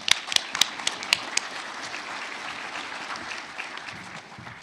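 Audience applauding. A few loud single claps stand out in the first second or so, then the clapping goes on evenly and dies away near the end.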